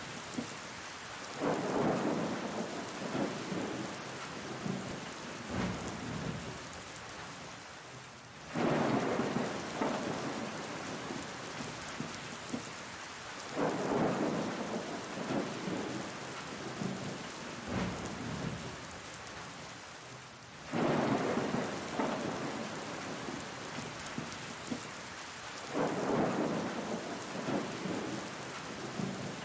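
Steady rain falling, with rolls of thunder that swell up five times, about every five to seven seconds, and fade away.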